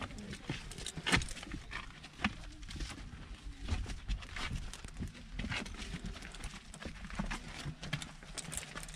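Footsteps of several people walking along a hard passage floor, an irregular run of light steps and scuffs.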